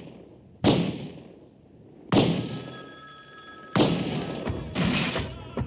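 A telephone bell ringing once for about a second and a half, starting about two seconds in. Around it are several sudden heavy thuds, each fading away, roughly a second apart.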